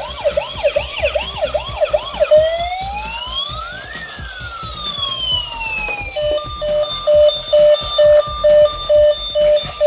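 Toy ambulance's electronic siren playing through its small speaker: a fast repeating whoop for the first two seconds or so, then one slow wail rising and falling, then from about six seconds in a pulsing electronic beeping tune about twice a second.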